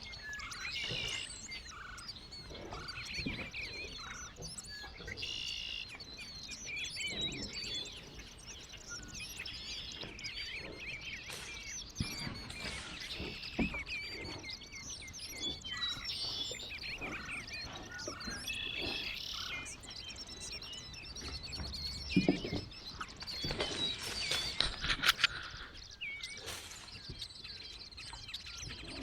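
Several birds chirping and singing throughout, with a few sharp knocks or cracks, the loudest between about 22 and 25 seconds in.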